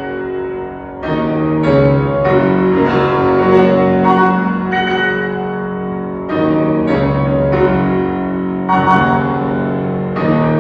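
Two grand pianos, one a Bösendorfer, playing a brisk duet with sharply struck chords and running notes.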